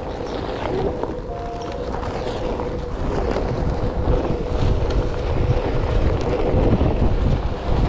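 Wind buffeting the microphone and the rumble of a VESC-modded Onewheel's tyre rolling over a dirt track. The rumble grows louder from about halfway through, and a faint steady hum runs underneath.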